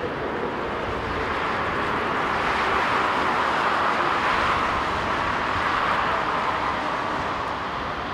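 Airbus A350-941's Rolls-Royce Trent XWB jet engines running at low taxi power as the airliner taxis, a steady rushing whine that swells a little midway.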